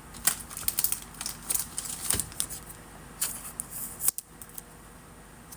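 Trading cards being handled: a quick run of small clicks and rustles of card stock and plastic sleeves that stops about four and a half seconds in.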